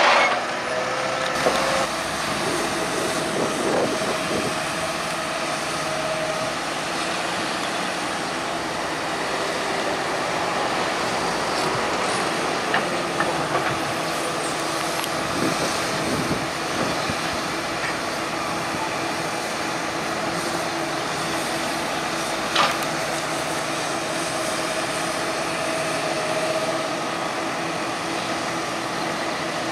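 Diesel engines of a New Holland T7.245 tractor and a Hitachi Zaxis 210 excavator running steadily while the excavator loads slurry into the tractor's spreader, with a single sharp knock about three-quarters of the way through.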